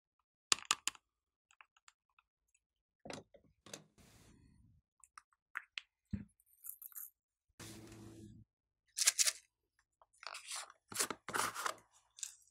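Small plastic containers and a plastic toy compact handled by hand: a series of separate clicks, clacks and scrapes, busier and louder near the end as sprinkles are tipped out of a pot.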